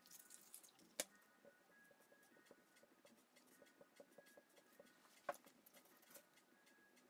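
Near silence with a sharp click about a second in, another about five seconds in, and faint small ticks between: matchsticks and fingers pressing a glued bezel insert onto a dive watch's bezel.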